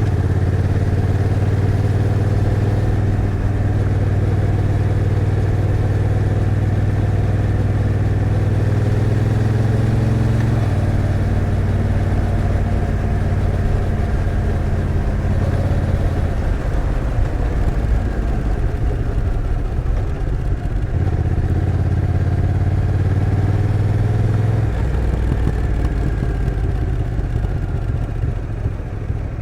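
Honda NT1100's 1,084 cc parallel-twin engine running steadily under way. Its note changes in steps about a third of the way in, again about two-thirds in, and near the end.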